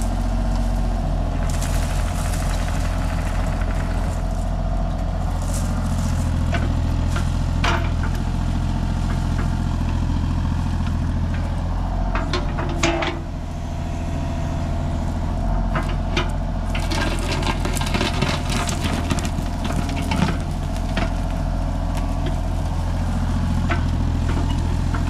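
Kubota KX033-4 mini excavator's three-cylinder diesel engine running steadily while its bucket digs and rakes through briars and brush, with scattered cracks and scrapes from the bucket tearing through the brush.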